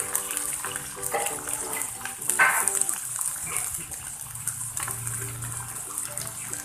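A wok of green eggplant, tempeh and green chili simmering in freshly added water: a steady bubbling hiss, with one brief louder sound about two and a half seconds in.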